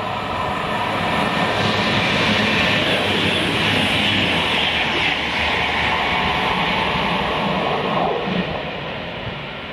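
Voyager diesel-electric multiple unit passing close at speed: its underfloor diesel engines and wheels on the rails, building over the first couple of seconds and fading away after about eight seconds.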